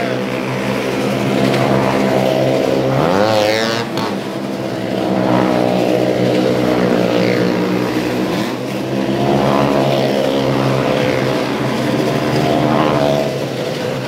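Motorcycle engine running at steady speed as the bike circles the wall of a well-of-death drum, its pitch swelling and falling each time it sweeps past, several times.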